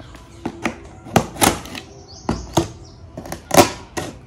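A blade cutting along the clear packing tape and cardboard of a box, a series of short, sharp rasps and scrapes at an uneven pace.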